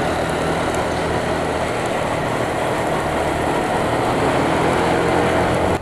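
Motorcycle running steadily at riding speed, its engine hum under a constant rush of wind and road noise.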